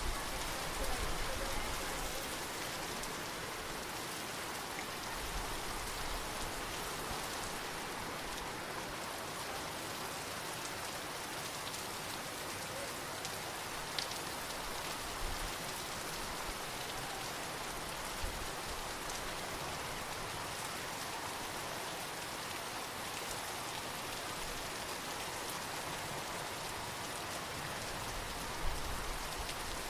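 Steady hiss of shallow water trickling over grass and mud, with a few small splashes from a hand working in the water.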